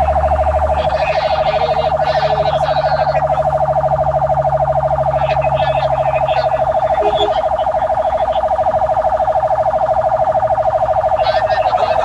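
Fire truck siren sounding continuously in a fast, steady warble, heard from inside the cab. A low steady engine hum runs underneath.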